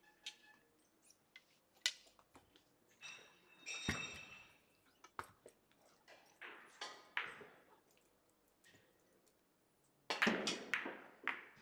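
Scattered clicks and knocks of pyramid billiard balls and cue. The loudest is one ringing clink of balls striking about four seconds in. A short burst of rustling noise comes near the end.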